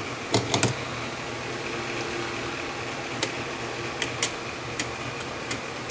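Light clicks and taps of a plastic tape reel being seated on the spindle of a Sony TC-200 reel-to-reel deck, and tape being handled for threading: a quick cluster about half a second in, then scattered single clicks later. A steady hum runs underneath.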